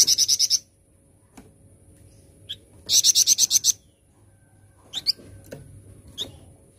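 Flamboyan songbird singing: two quick rattling trills of rapid repeated high notes, one at the start and one about three seconds in, with a few short single chirps in between and near the end.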